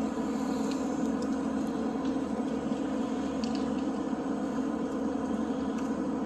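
Backhoe engine running steadily under load, with a few faint clicks over it.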